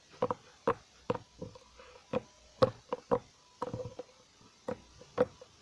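Soft slime being squeezed and pressed between the hands, giving a quick, irregular series of sharp clicks and pops.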